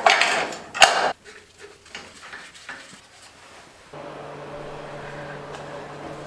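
Clatter and scraping of a sheet-metal bracket being handled against a vehicle's chassis rail, loudest in the first second, then quieter rubbing. About four seconds in, a steady low music note begins.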